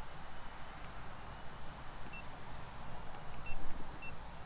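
Outdoor insect chorus: a steady high-pitched buzz that carries on throughout. A few faint, short high beeps or chirps sound in the second half.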